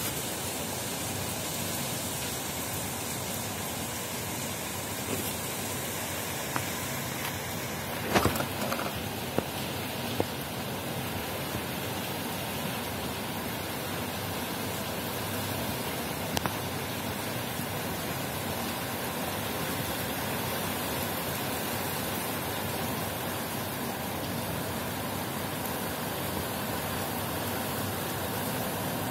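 Heavy rain falling in a steady, dense hiss. A few sharp taps stand out, clustered about eight to ten seconds in.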